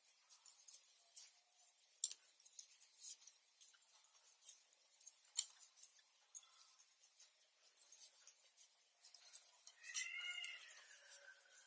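Knitting needles clicking and tapping faintly and irregularly as stitches are worked along a row.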